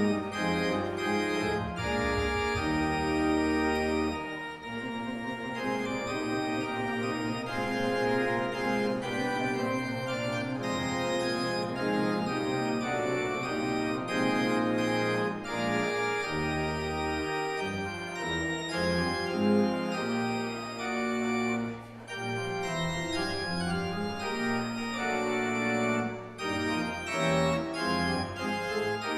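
Church organ playing the postlude after the benediction: held chords over low bass notes that change every second or two.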